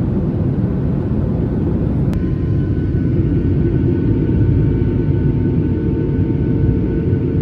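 Steady low rumble inside a moving passenger vehicle's cabin, with faint steady tones joining about two seconds in.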